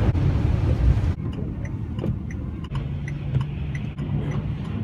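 Cargo van driving, heard from inside the cab: loud road and engine noise, dropping abruptly about a second in to a quieter steady hum with light regular ticks about every two-thirds of a second.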